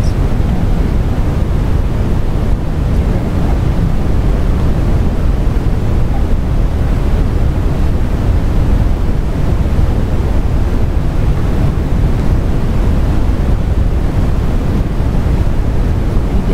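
A steady low rushing noise with nothing standing out from it.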